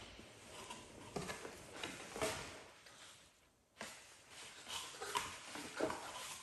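Paper and cardboard packaging being handled during unboxing: a leaflet and box inserts rustling and sliding, with light taps and knocks in irregular bursts. A brief lull comes a little past the middle, ending in a sharp knock.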